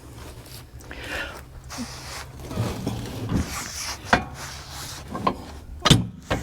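Several sharp metal knocks and clicks, the loudest about two thirds of the way in, as a pin and collar are fitted to the lower link of a three-point-hitch sprayer, over a low steady hum.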